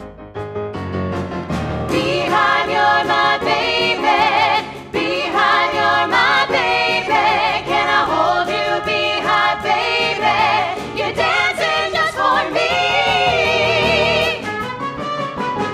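Several women's voices singing a 1960s-style pop number in harmony, backed by a band, with vibrato on the long notes and one long held chord near the end.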